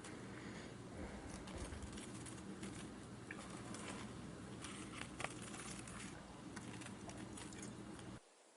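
Faint background noise with a low steady hum and scattered small clicks and rustles, cutting off suddenly near the end.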